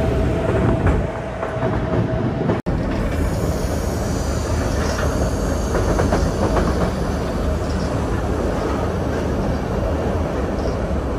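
White Pass & Yukon Route passenger train heard from on board while moving: a steady rumble of the car's wheels running on the rails. A thin steady tone sounds through the first couple of seconds, then the sound drops out for an instant about two and a half seconds in.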